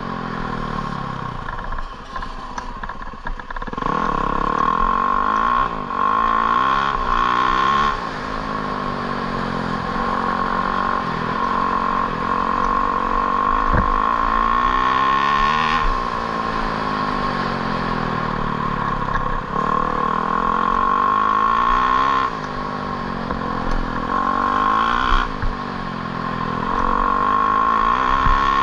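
A vehicle engine running hard, its pitch swinging up and down over and over every few seconds, with a steady high whine underneath.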